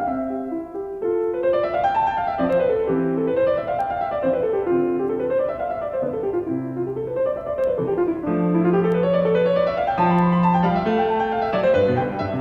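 Background piano music: a piano plays flowing runs of notes that rise and fall in repeated waves over held bass notes.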